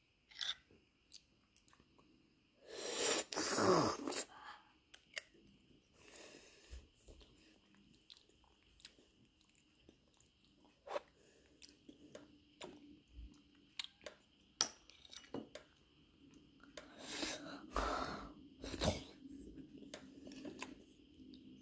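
Someone biting and chewing hard, crunchy chunks close to the microphone: loud crunching bites about three seconds in and again around seventeen to nineteen seconds, with small clicks and mouth sounds in between.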